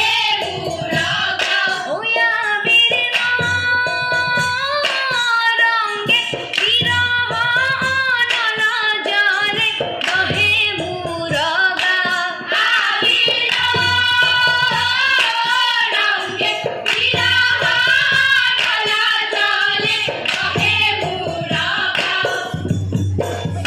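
A women's chorus singing an Assamese Holi folk song in unison to rhythmic hand clapping, with a double-headed hand drum beating underneath.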